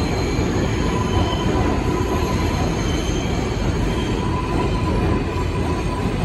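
New York City subway train pulling into an underground station, its cars rolling steadily along the platform as it slows, with some high wheel squeal over the rumble.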